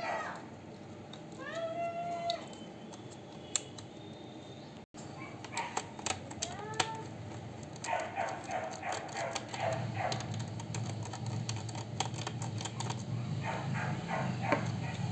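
A domestic cat meows twice, once about two seconds in and again around six seconds. From about eight seconds on there is a run of quick clicks and taps, like laptop keys being pressed.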